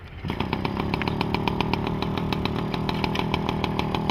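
A small two-stroke moped engine running steadily, with an even, fast popping beat of about ten pulses a second; it comes in abruptly a moment in.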